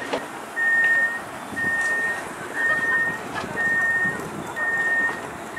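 A passenger train's door warning signal: a high electronic beep about half a second long, repeating steadily about once a second.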